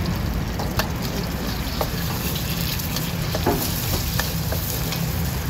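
Egg and oil sizzling in a carbon-steel wok over a gas burner's steady low rush, with metal spatulas scraping and clinking against the wok a few times.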